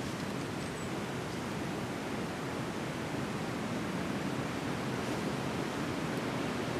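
Strong wind blowing steadily, a constant rushing hiss.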